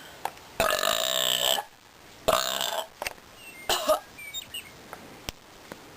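A person belching three times: a long, low-pitched belch lasting about a second starting just after the start, a shorter one at about two seconds, and a brief one near four seconds.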